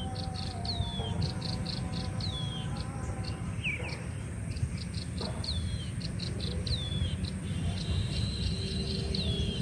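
Forest ambience: insects chirping in rapid, evenly spaced pulses over a steady high-pitched insect drone, while a bird repeats a short falling whistle about once a second. A low steady rumble runs underneath.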